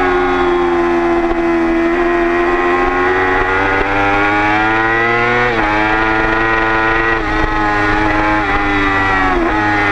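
Motorcycle engine heard from on board at track speed, a loud, steady drone whose pitch climbs slowly, with short sharp dips in revs about halfway and near the end.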